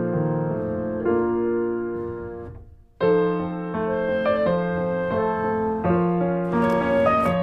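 Background piano music playing slow held chords; it fades away to a brief gap about two and a half seconds in, and a new phrase starts abruptly at about three seconds.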